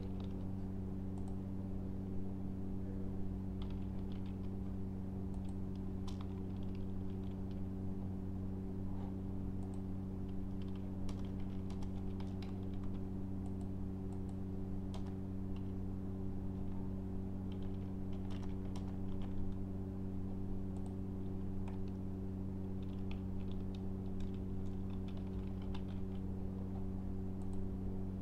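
Computer keyboard typing in irregular bursts of key clicks, with pauses between, over a steady low hum.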